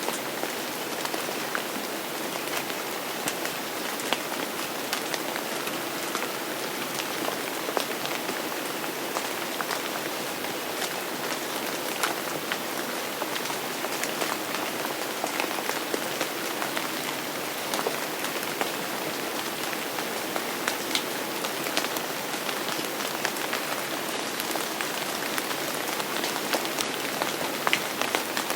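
Steady rain falling on a surface, an even hiss with many separate drops ticking close by.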